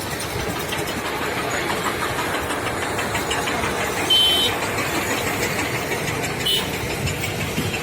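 Steady road traffic noise with a short, high beep about four seconds in and a fainter one a couple of seconds later.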